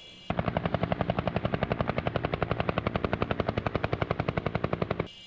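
A helicopter rotor sound effect: a fast, even chopping beat that starts suddenly just after the start and cuts off suddenly near the end.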